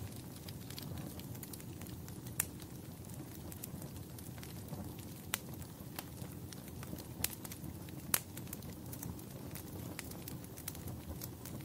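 Wood fire burning in a fireplace: a steady low rumble of flames with frequent small crackles and a few sharper pops.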